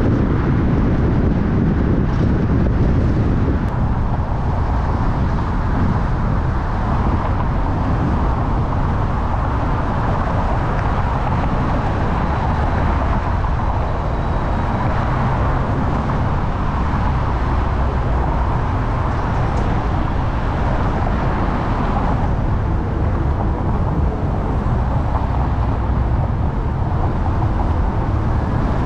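Steady road noise of a car being driven through city traffic: a continuous low rumble of engine and tyres.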